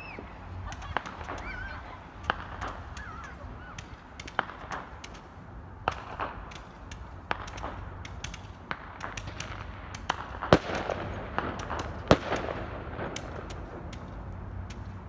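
Fireworks and firecrackers going off in a rapid, irregular string of sharp pops and crackles, with two much louder bangs about two-thirds of the way through. A few wavering whistling tones come in the first few seconds.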